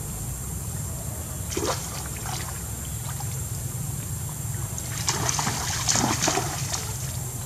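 Macaques thrashing and splashing in a shallow muddy stream, in two bouts: a short one about a second and a half in and a longer, louder one around five to six seconds in. Under them runs a steady low rumble.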